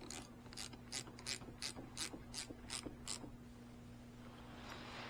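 Hand ratchet wrench clicking as the clamp bolt of a new battery terminal is tightened: about ten sharp clicks, roughly three a second, stopping after about three seconds.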